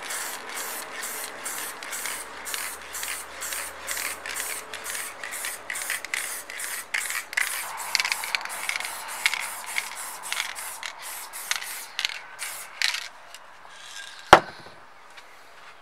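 Aerosol spray paint can hissing in short, rapid bursts, about three a second, as paint is sprayed onto metal parts. A sharp knock sounds near the end.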